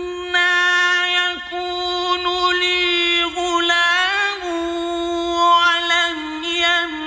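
A male reciter chanting Qur'anic Arabic in slow, melodic tajweed style. He holds long notes and ornaments them with wavering turns of pitch, pausing only briefly for breath.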